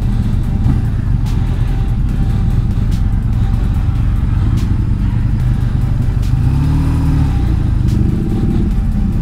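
Motorcycle engine running at low speed with a steady low rumble, heard from the rider's own bike. About seven seconds in it revs up once and falls back.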